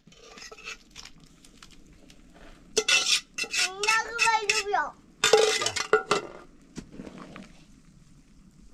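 Dishes and metal cutlery clinking and clattering, loudest in two bursts about three seconds in and again just after five seconds, with softer clinks around them. A child's voice is briefly heard between the two bursts.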